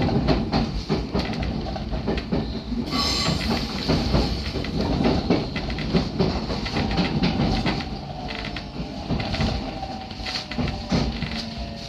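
313 series electric train running, its wheels clicking over rail joints through a steady rumble, with a faint tone sliding slightly lower in the second half.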